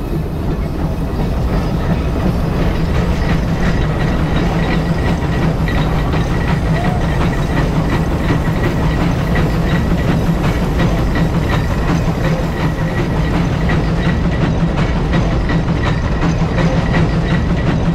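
Case 150 steam traction engine working under load pulling a gang plow: a steady run of exhaust chuffs over a hiss of steam.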